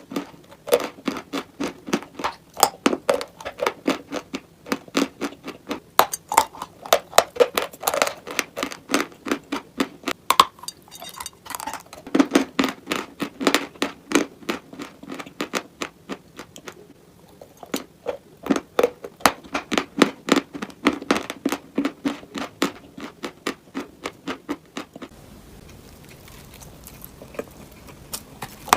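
A person biting and chewing crunchy dry chalk-like clay close to the microphone: rapid, sharp crunches several times a second, with a brief lull partway through. The crunching stops about three-quarters of the way in, leaving a faint hiss.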